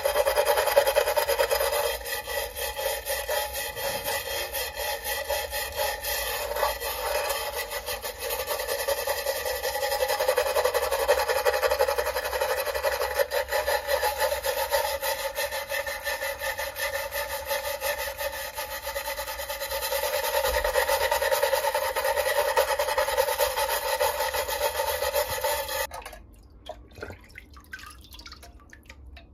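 Metal file scraping in quick strokes across a rusted metal lantern part, taking off wet rust and sludge. The scraping stops about three seconds before the end, leaving faint water sounds as the part is dipped in the liquid.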